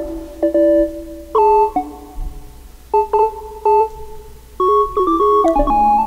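Electronic synthesizer tones from a touchpad synth played by pressing a crystal point onto its pad: short clean notes that jump in steps from pitch to pitch, several in a row, with a fading held tone between them.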